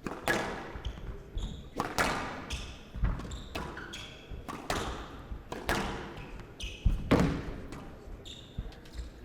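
A squash rally: the hard rubber ball cracking off rackets and the court walls in a quick irregular series of sharp, echoing hits, with the odd short squeak of court shoes.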